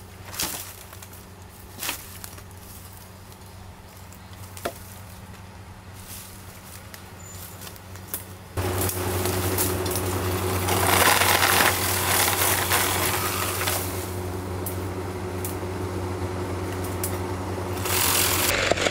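A few scattered knocks and clicks over a low steady hum, then a power tool's motor starts abruptly about halfway in and runs steadily, getting louder for a few seconds soon after and again near the end.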